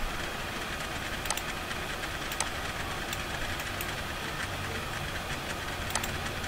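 A few sharp computer mouse clicks, about a second in, near the middle and near the end, over a steady background hum and hiss.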